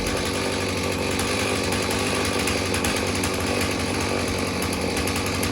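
Stihl 039 two-stroke chainsaw engine running steadily on a test run after a service.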